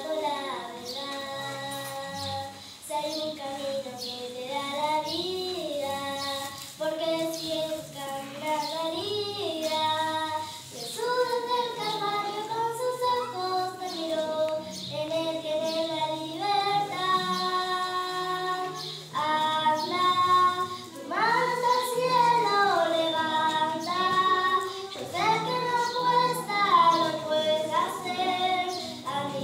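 A young girl singing a solo into a microphone, her melody rising, falling and holding notes, over a low instrumental accompaniment of sustained bass notes.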